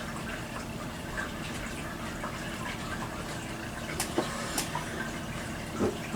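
Steady room noise, a low hiss with a faint hum, with a few light clicks about four seconds in and a brief soft knock near the end.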